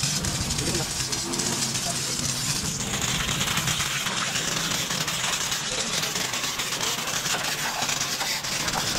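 Motorcycle engine running with a steady high hiss over it, which changes in tone about three seconds in.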